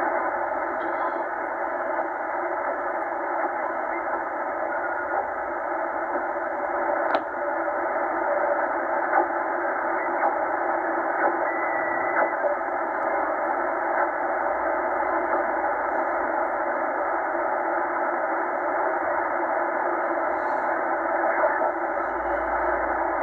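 Tecsun H-501X shortwave receiver in upper-sideband mode giving a steady, thin hiss of band noise and static as it is tuned up through about 4.5 to 4.65 MHz. Everything above a narrow voice-width passband is cut off. A single click comes about seven seconds in.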